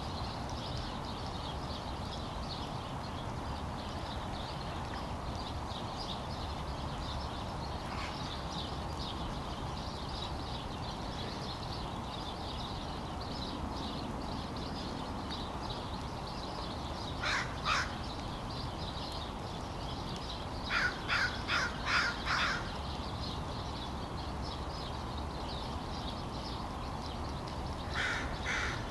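A flock of crows cawing: a pair of caws past the middle, a quick run of about five caws a few seconds later, and another run beginning at the end, over a steady low background noise.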